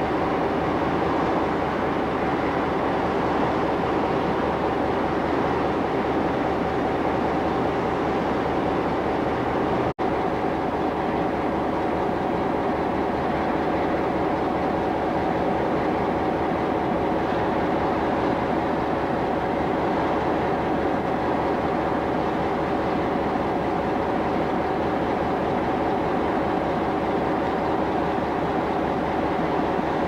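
A steady rumble with a constant hum running through it, broken by a brief gap about ten seconds in.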